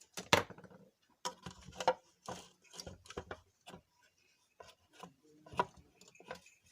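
Irregular hard clicks, knocks and rubbing of plastic and metal parts being handled, as a disassembled mixer grinder's motor unit and drive coupler are worked at by hand.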